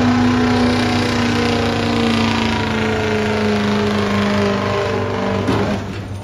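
Ford Super Duty diesel pickup's engine at full throttle dragging a truck-pulling sled, its pitch slowly sagging as the sled's load builds. About five and a half seconds in the engine drops off sharply as the pull ends.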